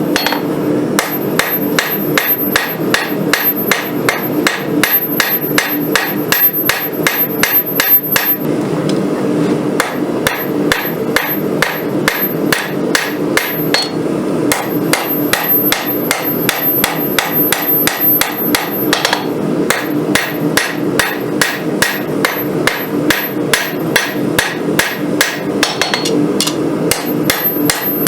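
Hammer blows on hot rail-spring steel over an anvil, rough-forging a blade, at about three strikes a second with a few short pauses. A steady hum runs underneath.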